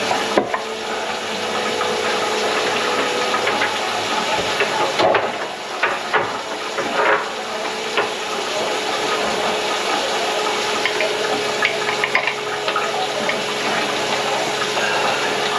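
Water running steadily through a kitchen sink drain, with a faint steady hum underneath and a few light knocks in the middle.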